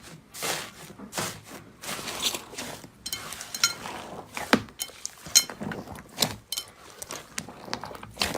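Slime being handled up close: a few soft squishes, then from about three seconds in a denser run of crisp crackles and clicks.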